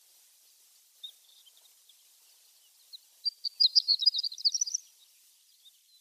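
Horned lark (shore lark) calling: a few faint, thin high notes, then about a second and a half of rapid, high twittering notes in a quick jumble before it stops.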